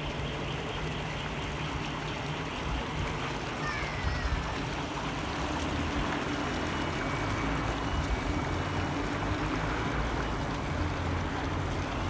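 Bubbling fountain jets splashing into a stone-walled pool: a steady churn of falling water.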